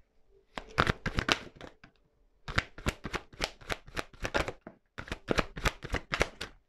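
Deck of cards shuffled by hand: three bouts of rapid crisp clicking, each a second or two long, with short pauses between.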